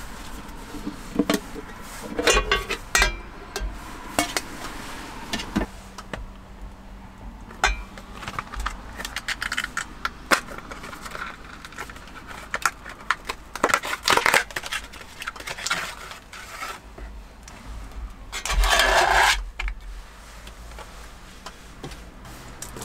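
Clinks, knocks and scrapes of a metal mess tin being handled and set down on a camp gas stove. About three-quarters of the way through there is a louder rustle of packaging lasting about a second, as a retort curry pouch comes out of its cardboard box.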